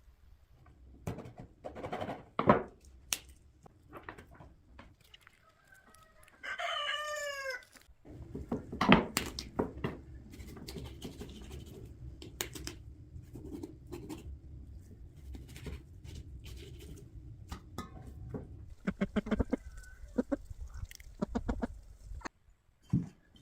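A chicken squawks once, a loud call with a few quick falling notes, about six and a half seconds in, among scattered knocks and clatter. A low rumble runs through the middle and stops shortly before the end.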